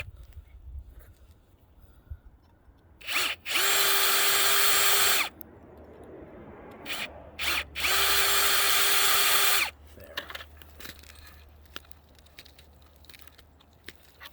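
Power drill with a 1/8 inch bit drilling out the screw holes in rail joint bars, run in short bursts. There is a quick blip about three seconds in, then a run of nearly two seconds, two brief blips around seven seconds and another run of nearly two seconds, with light handling clicks between.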